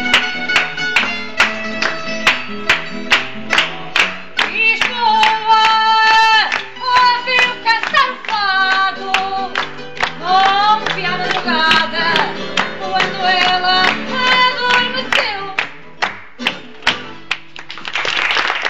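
A woman singing fado to a Portuguese guitar. Plucked guitar notes play alone at first. Her voice comes in about four and a half seconds in with long held, wavering notes, the guitar drops back to playing alone, and the audience breaks into applause near the end.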